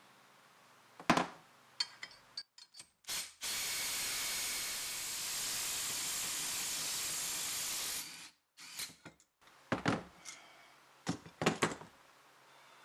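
Cordless impact wrench running for about four and a half seconds as it drives the forcing screw of a three-jaw gear puller to pull a cast-iron handwheel off the press screw. It starts and stops abruptly, and is followed by several sharp metal clunks as the wheel and puller are handled.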